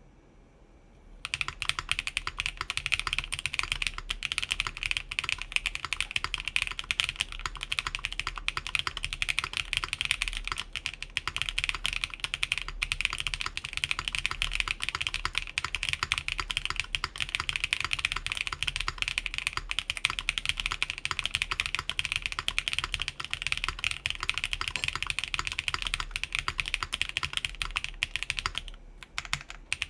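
Fast continuous typing on an Atelier Magnus Slate Zero mechanical keyboard with factory-lubed Keygeek Blue Cheese v2 tactile switches, DSA keycaps, a full aluminium plate and plate and case foam installed. The typing starts about a second in and pauses briefly just before the end.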